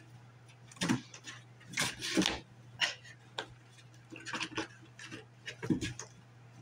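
Two kittens playing in and on a cardboard box: irregular scratches, taps and thumps of claws and paws on the cardboard. They come in clusters, with the loudest around two seconds in and a heavier thump near the end.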